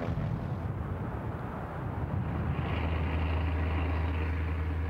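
PBY Catalina flying boat's twin radial engines droning in flight: a steady low propeller drone that grows slightly louder about halfway through.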